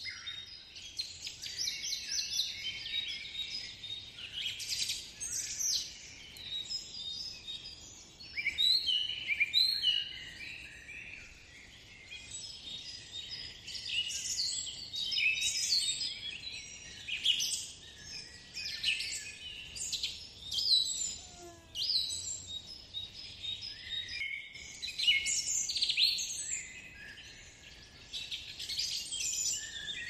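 A dense chorus of many small songbirds chirping and trilling over one another, without a break.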